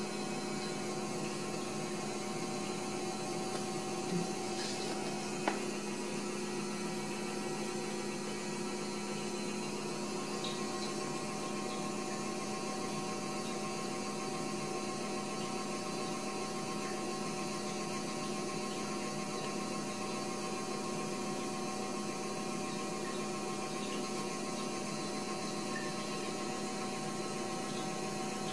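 Steady electrical mains-type hum, with two small clicks about four and five and a half seconds in.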